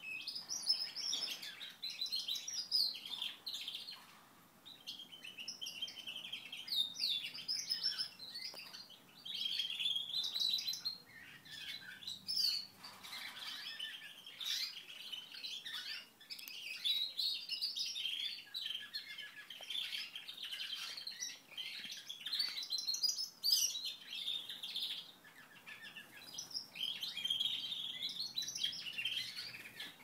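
Caged canary singing a long, rapid run of trills and chirps, with only brief pauses.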